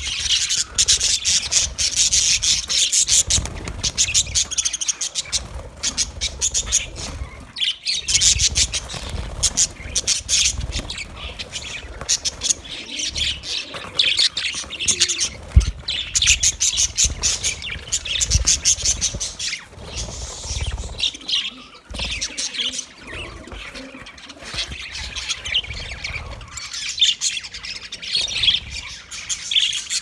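A flock of budgerigars chattering: many rapid overlapping chirps and warbles, with low rumbles underneath at times.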